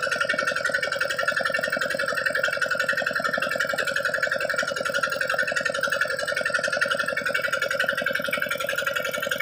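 Small stationary diesel engine running steadily, driving a belt-driven irrigation water pump, with a fast, even knock of firing strokes.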